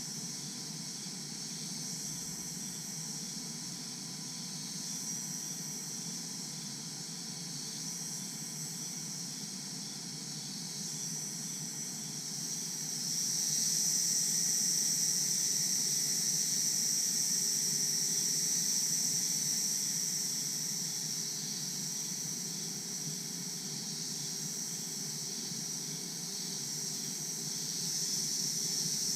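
Daytime tropical jungle insect chorus, chiefly crickets, as a steady high-pitched drone over a soft background hiss. It swells louder for several seconds past the middle, then eases, and rises again near the end.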